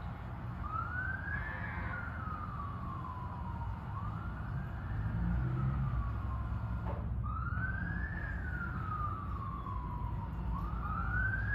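Motorcade police siren wailing in slow cycles, each a quick rise followed by a longer falling sweep, four times about every three seconds, over a low traffic rumble. A brief knock sounds about seven seconds in.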